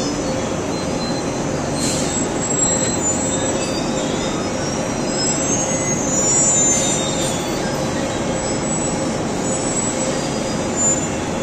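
Multi-deck roller dryer for plywood veneer sheets running: a steady, dense machine noise with thin high-pitched squeals coming and going, like metal rollers turning in their bearings.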